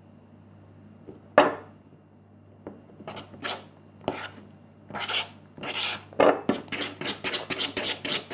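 Slime being mixed in a bowl: a sharp knock about a second and a half in, then irregular scraping and rubbing strokes that come faster toward the end.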